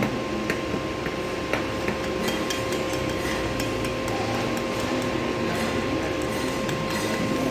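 Stick-welding arc burning an E7018 4.0 mm electrode at 150 amps: a steady crackle with frequent sharp pops, over a faint steady tone.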